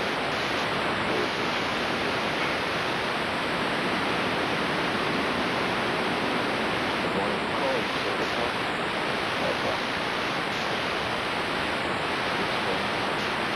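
Steady static hiss from a blank, unrecorded stretch of videotape, even and unchanging.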